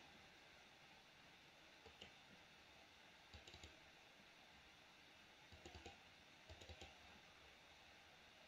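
Faint computer mouse clicks against near silence: a few scattered clicks, some in quick runs of two or three.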